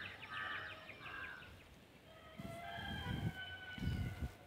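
A rooster crowing faintly: one long held call about halfway through, after a few shorter bird calls near the start. A few low thumps are heard under it.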